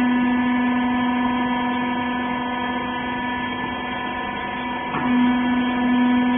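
Hydraulic rag baler's power unit, an electric motor and pump, running with a steady hum; about five seconds in there is a short click and the hum grows louder, as the press takes up load.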